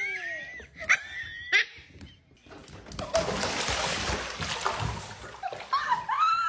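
Splashing water for about three seconds, with short high-pitched gliding cries before it and a rising cry near the end.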